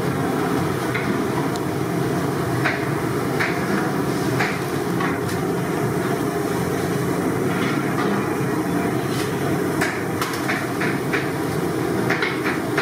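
A large kitchen knife chopping blocks of paneer into cubes on a wooden cutting board: irregular knocks of the blade on the board, with a quick run of them near the end, over a steady background drone.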